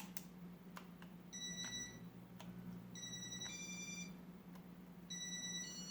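Casablanca W32 fan control beeping as its buttons are pressed: short groups of electronic beeps, some stepping through several pitches like a little tune, with sharp button clicks between them. A steady low hum runs underneath.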